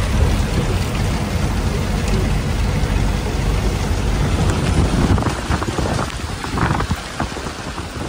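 Steady rushing noise of a moving truck heard from inside the cab in the rain: engine and tyres on a wet road with rain on the cab, easing slightly near the end.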